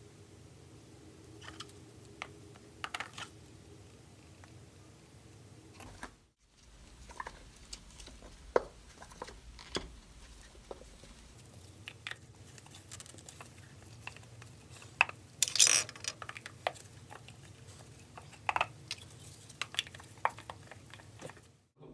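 Plastic paint cups being handled: scattered light clicks and knocks as the cups are set down and their plastic lids pressed on, with one louder crackling burst past the middle. A low steady hum runs underneath.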